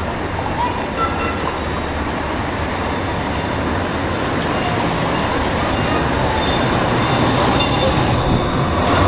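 Light-rail train pulling into a street-level stop, its rumble growing louder as it draws alongside, with a few sharp clicks in the second half.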